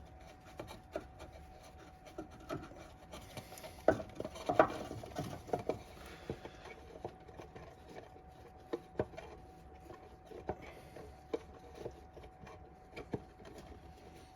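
Scattered light clicks, knocks and rubbing as parts are handled while the new oil filter is refitted from under the car, the loudest knocks about four seconds in. A faint steady hum runs underneath.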